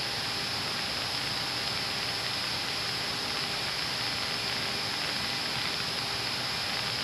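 Steady in-flight cockpit noise of a C-130 Hercules: an even hiss of its turboprop engines and rushing air, with a few faint steady tones.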